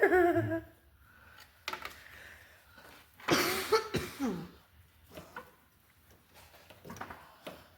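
A person coughs or clears their throat with a harsh burst about three seconds in, after a brief vocal sound at the start, with a few light clicks between.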